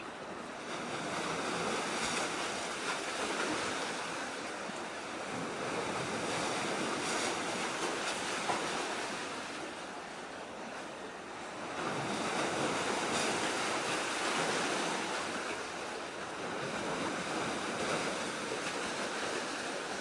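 Waves washing onto the shore, a steady rushing surf that swells up about a second in, eases off near the middle and swells again.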